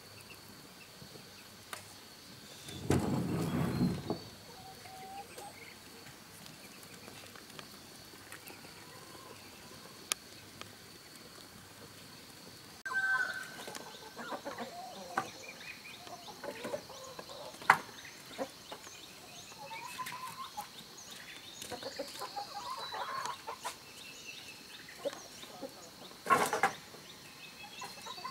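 Chickens clucking, over a steady high insect drone. Two brief louder noisy sounds come about three seconds in and near the end.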